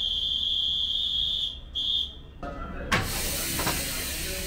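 A steady high-pitched buzzer tone, broken once briefly and then cut off. Then a sharp clunk from the coupler between two Sunrise Express 285-series trainsets, followed by a steady rush of hissing air, as the sets are uncoupled.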